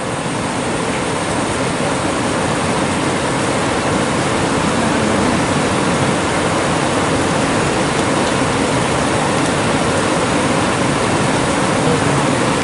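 River water rushing over stones and gravel: a steady, even noise.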